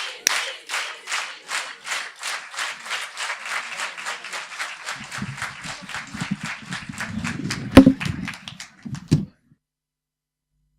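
An audience clapping together in a steady rhythm of about three claps a second, calling for an encore. The clapping slowly fades. From about halfway there is a low rumble, with two loud thumps near the end, and then the sound cuts off abruptly.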